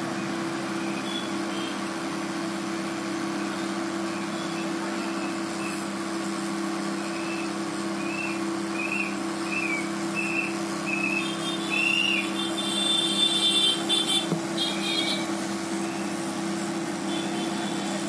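A steady mechanical hum over a hiss, from a motor or fan running. About halfway through comes a run of short, high chirps, followed by a few higher squeaky pulses.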